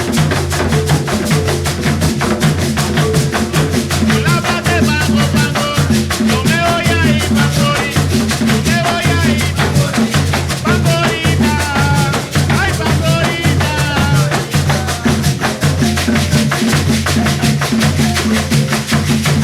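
A music group playing Colombian Pacific-coast music: shakers and drums keep a fast, steady rhythm over steady low notes. A voice sings over it through the middle.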